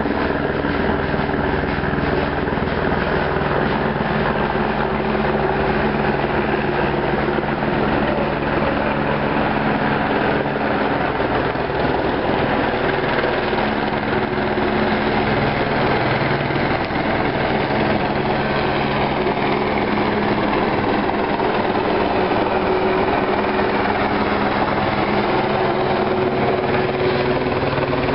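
Police helicopter flying overhead, its rotor chop and engine loud and steady.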